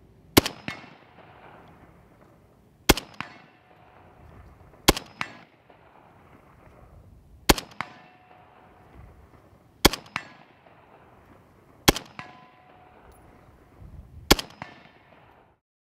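Seven single shots from a 7.62x51 (.308) battle rifle, fired at an even pace about every two seconds. Each is answered a fraction of a second later by the clang of the bullet striking a steel target, which rings on briefly.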